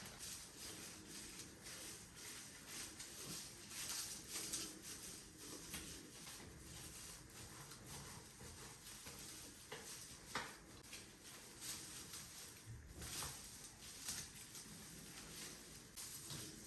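Faint, scattered handling sounds: light clicks, taps and rustles of small objects being moved about.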